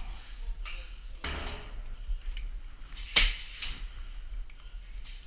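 Sharp knocks and cracks with indistinct voices; one loud crack about three seconds in stands out above the rest.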